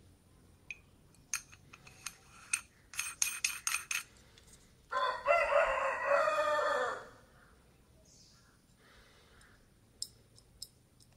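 A rooster crows once, a single pitched call about two seconds long and the loudest sound, about five seconds in. Before it comes a run of sharp clicks from metal lens extension tubes being handled, with a few more clicks near the end.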